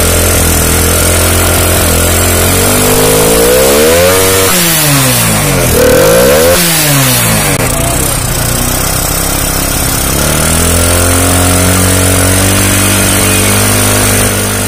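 TVS Apache RTR motorcycle's single-cylinder four-stroke engine idling with its carburettor intake open. It is revved up and down twice, about three to seven seconds in, then settles back to a steady idle.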